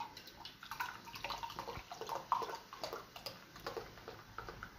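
Coca-Cola poured from a glass bottle into a ceramic mug: an irregular run of glugging and splashing.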